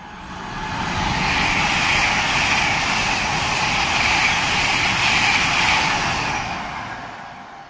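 GWR Intercity Express Train passing through the station at speed without stopping: a rush of wheels on rail and air that builds over the first second, holds for about five seconds, then fades away near the end.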